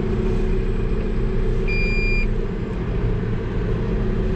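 Deutz-Fahr 9340 TTV tractor's engine running with a steady low rumble, heard from inside the cab. About halfway through, a single high electronic warning beep sounds for about half a second.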